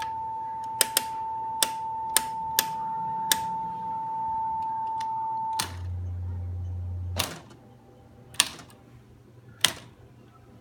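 Sharp clicks of switches and buttons being worked on bench electronic test instruments, about six in the first few seconds, over a steady high electronic tone. The tone cuts off with a click about five and a half seconds in. A low hum follows for about a second and a half and ends with another click, then two more clicks come on a quieter background.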